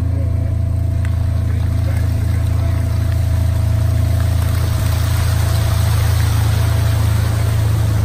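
Vehicle engine running with a steady low drone while driving through standing floodwater on a dirt road. A rushing hiss of water spray builds from about three seconds in.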